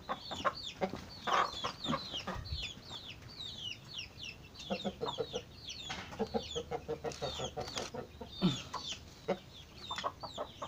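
Hens clucking, with a few quick runs of rapid clucks, over many short, high, falling chirps.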